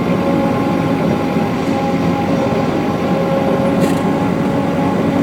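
The 80-horsepower diesel engine of a 15-inch gauge miniature locomotive runs steadily while the train rolls along. It makes a continuous hum with several steady tones.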